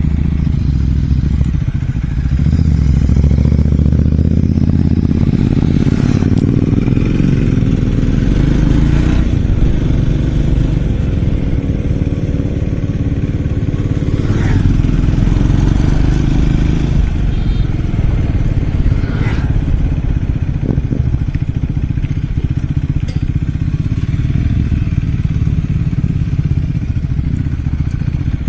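Triumph Scrambler 400 X's single-cylinder engine and exhaust running under way, rising steadily in pitch as it pulls through a long acceleration, then easing off about halfway through. Occasional knocks and clatter from riding over rough ground.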